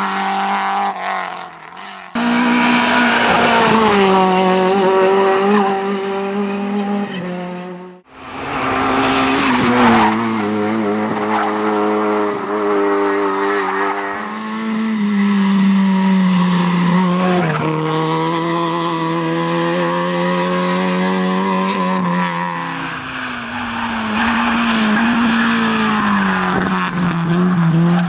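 Rally car engine running hard at high revs, its pitch climbing and dropping repeatedly through gear changes, with tyre noise. The sound breaks off abruptly about two seconds in and again about eight seconds in.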